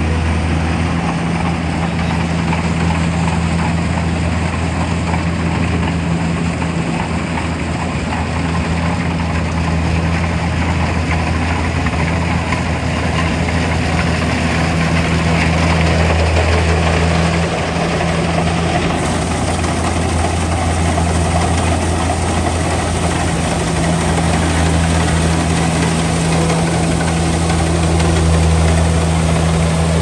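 Kubota rice combine harvester's diesel engine running steadily at working speed while harvesting, a low, even hum with machinery noise over it.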